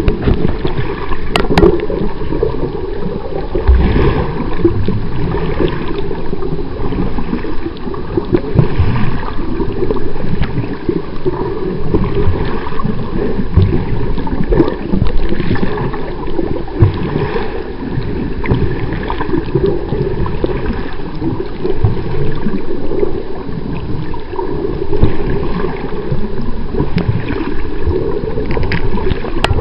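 Muffled water noise picked up by a camera held underwater: an uneven, low-pitched rushing and gurgling that swells and eases every few seconds.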